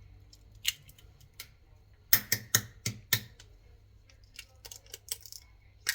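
Hard clicks and taps against a cooking pot as two eggs are added to the milk: a couple of single clicks, then a quick run of about five taps, then lighter clicks.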